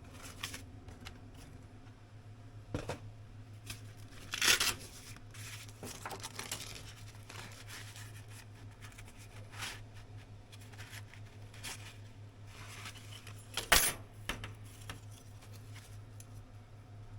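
Scattered rustling, scraping and sharp clicks of objects being handled, loudest about four and a half seconds in and again near fourteen seconds, over a steady low hum.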